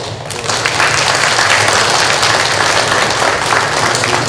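A large audience of schoolchildren applauding, swelling up within the first half second and then holding steady.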